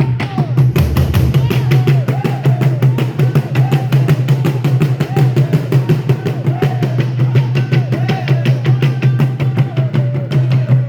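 African drumming: several drums struck in a fast, steady rhythm of many strokes a second, with a strong deep boom beneath.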